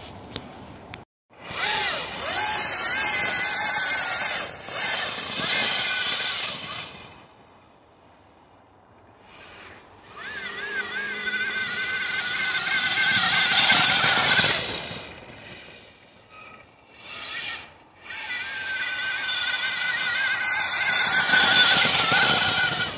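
Four Flipsky 63100 brushless motors and the chain drive of a quad-motor electric downhill mountain bike whining under full throttle. They come in three long passes of several seconds each, the whine wavering in pitch and dropping away between passes.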